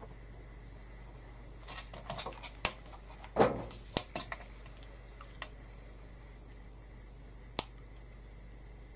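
Small metal cogs clicking and clinking on a plastic cutting mat as they are picked through by hand: a quick run of clicks with one louder knock in the middle, then two single clicks later.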